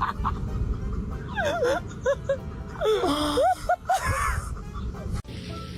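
Cat meowing, a series of short high-pitched mews, each rising and falling in pitch.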